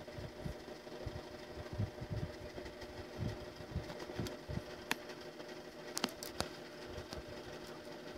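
Steady low machine hum, like a fan, with scattered soft low knocks and a few sharp clicks about five and six seconds in.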